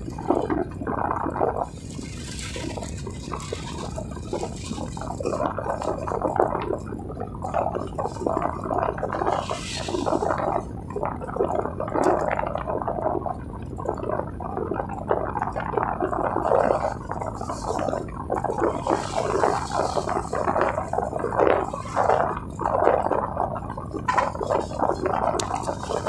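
Wind buffeting the microphone of a phone mounted on a moving bicycle's handlebar: a continuous, gusty, uneven noise that swells and dips irregularly.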